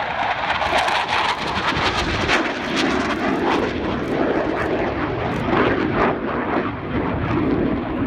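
Panavia Tornado jet's twin RB199 engines, a loud, steady jet noise with a crackling edge.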